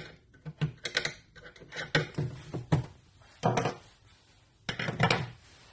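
A screwdriver and a metal concealed cabinet hinge clicking and knocking as the hinge is unscrewed and worked loose from a wooden door. Two heavier metal clatters come at about three and a half seconds and five seconds in.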